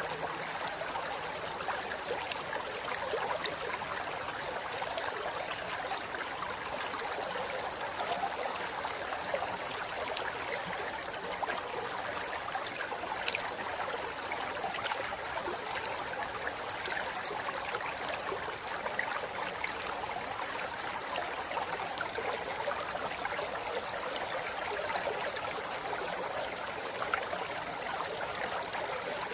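River water flowing steadily over rocks, a continuous rushing and babbling with small splashes.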